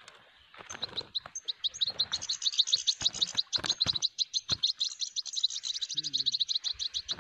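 European goldfinch twittering: a fast, unbroken run of short, high chirps, about ten a second, starting just under a second in.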